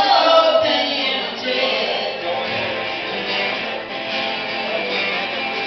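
Live band music: singing over guitar, with wavering sung notes most prominent near the start.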